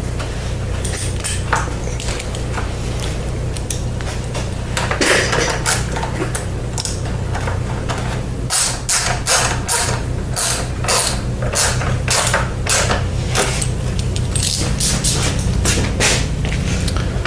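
Socket ratchet tightening the headlight mount bolts: some knocks of handling in the first half, then from about halfway through a regular run of ratcheting strokes, about two a second, over a steady low hum.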